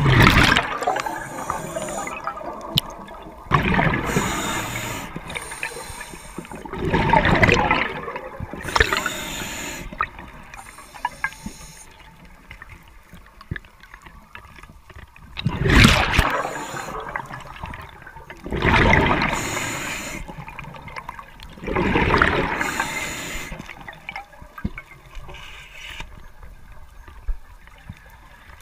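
Scuba diver breathing through a regulator: exhaled bubbles burst out with a loud gurgling rush every few seconds, with fainter hissing passages between them.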